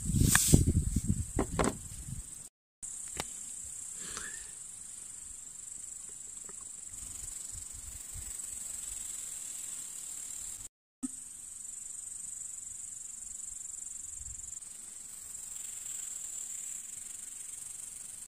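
Field insects chirping in a steady high-pitched drone. In the first two seconds, loud knocks and rustles of handling drown the low end.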